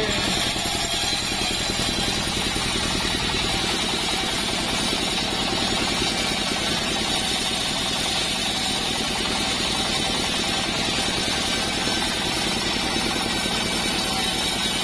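Mobile band sawmill running steadily with its engine under load while the blade cuts through a hard acacia log, a steady engine hum under an even, high saw hiss.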